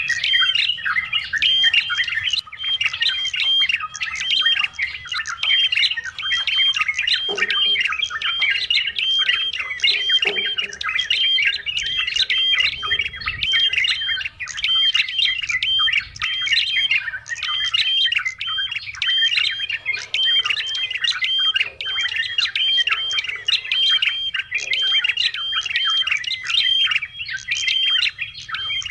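Yellow-vented bulbul (trucukan) calling without pause: a fast, unbroken run of short repeated chattering notes.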